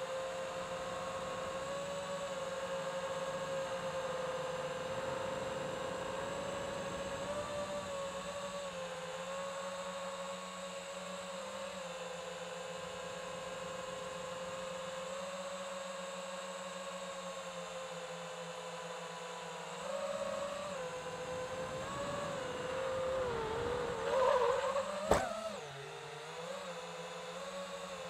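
Small drone's electric motors and propellers whirring in a steady whine whose pitch wavers with the throttle. Near the end the pitch swings up and down and there is one sharp click.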